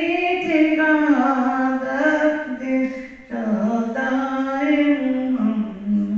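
A woman chanting a devotional naat unaccompanied into a microphone, in long drawn-out melodic phrases, with a brief pause for breath about three seconds in.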